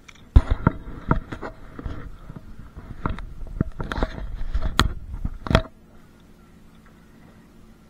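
Knocks and scrapes of someone shifting about and handling gear in a small riveted metal fishing boat: about a dozen sharp, irregular knocks over five seconds, stopping near the end.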